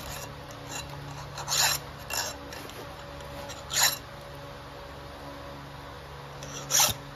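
Round chainsaw file rasping across the cutter teeth of a saw chain in a few short, separate hand strokes, unevenly spaced.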